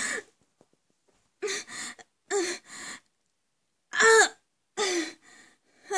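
Acted choking and gasping: a voice giving short strained gasps and groans with falling pitch, in broken bursts with pauses, the loudest about four seconds in, as of someone being strangled.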